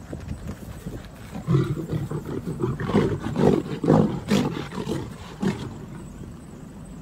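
Lions snarling and roaring in a run of harsh, loud bursts as a male lion charges a lioness, starting about a second and a half in and dying away about five and a half seconds in.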